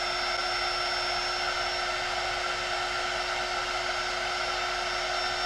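Hot air gun blowing steadily, a constant rush of air with a steady whine from its fan, as it shrinks heat-shrink tubing over a freshly soldered connector joint.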